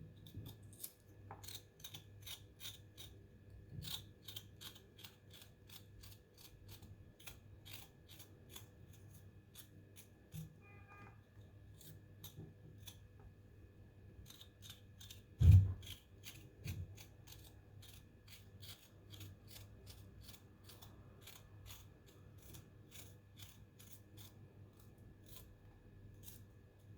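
Skin being scraped off a fresh turmeric root: quick, even scraping strokes, about three a second, with a short pause near the middle and one heavier thump about halfway through.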